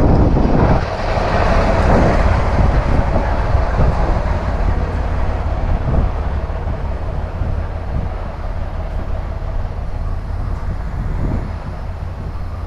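Semi truck's engine running, a steady low rumble with a few knocks, while the driver retries sliding the trailer tandems with air pressure still too low for them to release.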